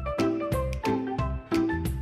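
Background music with a steady beat and bright pitched notes.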